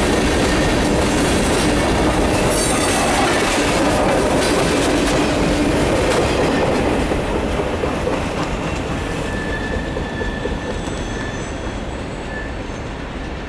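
Freight cars of a mixed freight train rolling past close by, their steel wheels clattering on the rails. The last car goes by about seven seconds in, and the sound then fades steadily as the train moves away.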